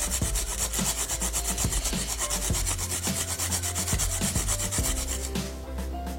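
Fingerroot (temu kunci) and aromatic ginger (kencur) rhizomes being grated on a plastic-covered grater in quick repeated rasping strokes. The grating stops near the end.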